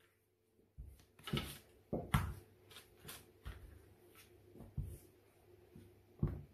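Wooden rolling pin rolling out soft dough on a board: faint rolling and brushing with several dull knocks, the loudest about two seconds in and near the end.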